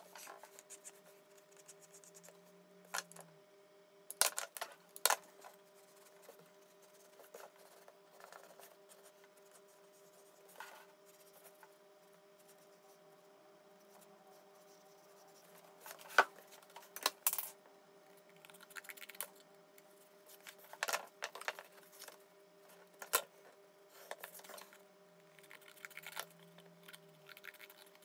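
Pencil scratching on grey card as it is handled, with scattered sharp taps and knocks; scissors cut through the card near the end. A faint steady hum in two tones runs underneath.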